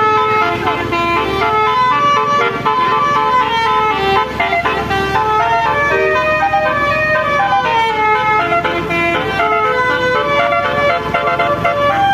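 Bus's Basuri 'telolet' multi-tone air horn playing a melody, loud and continuous, its notes changing several times a second.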